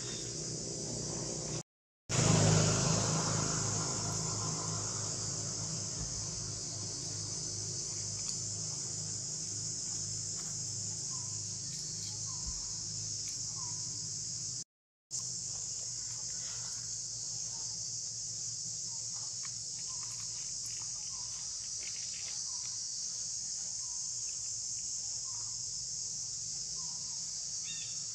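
Steady high-pitched drone of insects in the forest, cutting out to silence twice for a moment. Right after the first break, a louder noise swells and fades over about two seconds. Faint short chirps repeat about once a second through the second half.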